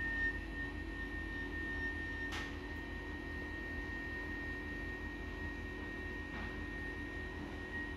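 Electric motor of an Autochair LC80kg car boot hoist running steadily with a high whine as it lifts a mobility scooter, with two faint clicks, one about two seconds in and one about six seconds in.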